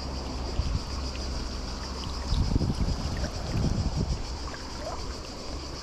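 Flowing river water, with a few splashes a little over two seconds in and again near four seconds.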